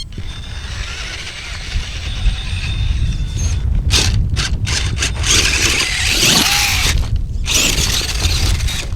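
Radio-controlled off-road car driving on a dirt track, its motor whining and its tyres spinning and scrabbling on loose dirt, with a steady low wind rumble on the microphone. The spinning gets louder from about four seconds in, in two long surges with short breaks.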